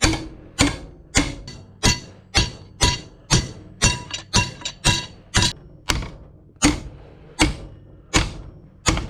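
Hammer blows on steel, about two a second and some seventeen in all, each with a short metallic ring, as a steel hinge piece is knocked into place.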